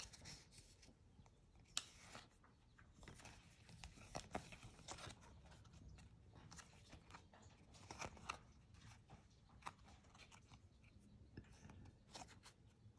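Baseball trading cards being thumbed through by hand: faint sliding of card on card with light ticks at irregular intervals.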